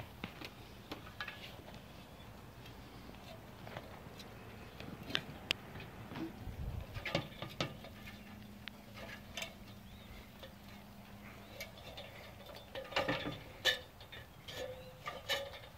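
Scattered light clicks and taps with soft footsteps, busier near the middle and near the end, over a faint steady low hum that comes in about halfway.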